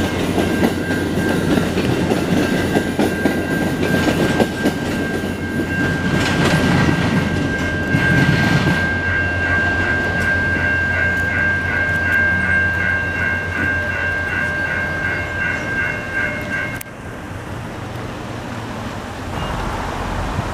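VIA Rail passenger train passing close by, its wheels clacking over the rails, with a steady high ringing tone over the rumble that starts to pulse about twice a second near the middle. The train sound cuts off suddenly about three-quarters of the way through.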